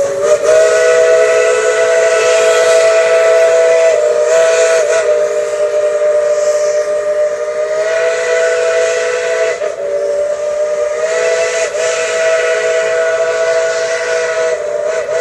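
Multi-note chime steam whistle blowing one long, continuous blast with a hiss of steam, its pitch wavering and dipping briefly a few times.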